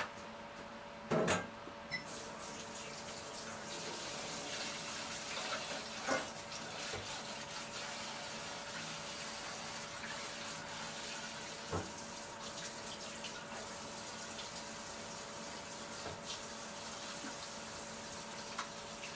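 A kitchen tap is turned on and runs water into a sink, an even rushing hiss, with a few knocks and clatters at the sink. The loudest knock comes just before the water starts, about a second in.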